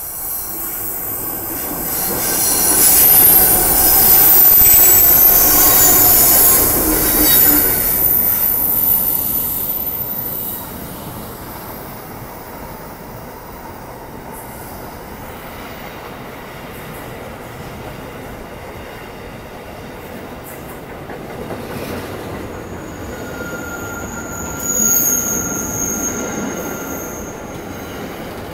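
Qube diesel freight train passing close by: the locomotive goes past loudest over the first several seconds with high-pitched wheel squeal. A long string of empty container flat wagons then rolls by with a steady rumble, and a thin wheel squeal returns near the end.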